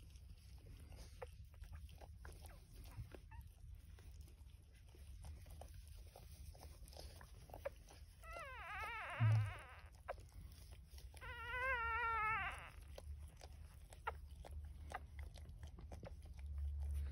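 Newborn puppy squealing twice, each a high, wavering cry about a second and a half long, the second beginning about a second after the first ends. There is a brief low thump during the first cry, and faint soft clicks and rustles between.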